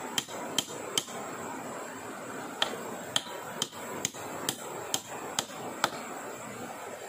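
A hand tool striking wood in a steady run of sharp knocks, about two a second, with a pause of a second and a half about a second in.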